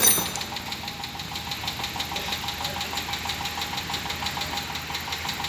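Dodge Durango engine idling with a rapid, even ticking, which the mechanic puts down to a valve lifter. A short sharp click sounds right at the start.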